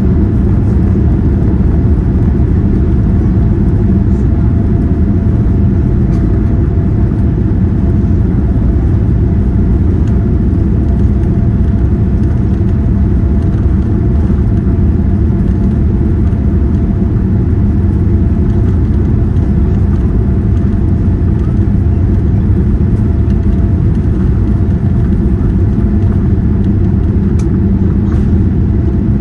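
Cabin noise inside a Boeing 787 during take-off: a loud, steady rumble of the jet engines at high thrust, with a faint constant hum running through it.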